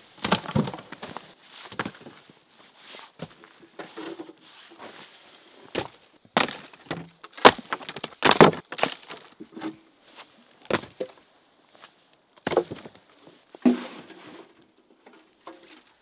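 Chunks of rotting wood and bark being tossed into a wooden raised bed, landing with irregular knocks and crunches, the loudest in the middle.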